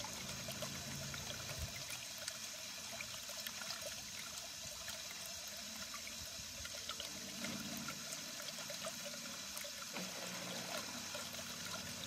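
Water running from a fill pipe into a garden fountain's basin: a steady trickle and splash as the low basin refills.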